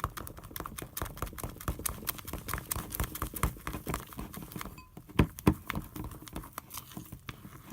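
Thick, freshly activated slime being stirred in a bowl: a rapid run of wet squelching and clicking, with two louder knocks about five seconds in.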